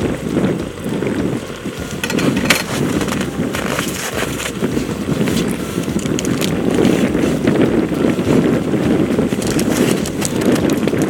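Wind buffeting the microphone with a heavy, steady rumble, over scattered short clicks and rustles of things being handled.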